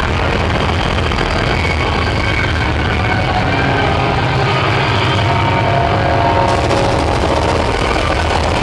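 Loud, distorted live band playing electric guitar and drums, heard as a steady wall of noise with no clear beat.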